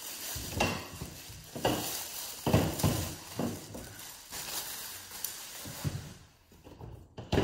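Plastic bag rustling and crinkling as it is pulled off a stainless steel waffle maker, with a few sharp knocks and clinks as the appliance is handled.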